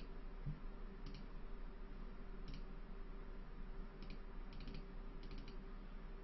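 Faint, scattered clicks of a computer mouse and keyboard being worked: single clicks about a second in, midway and at four seconds, then two quick runs of three near the end, over a low steady hum.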